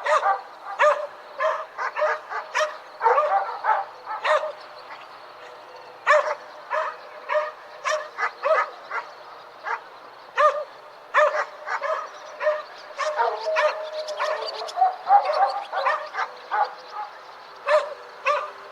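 Several dogs barking in the distance, with short barks in quick, often overlapping runs and a brief lull about five seconds in.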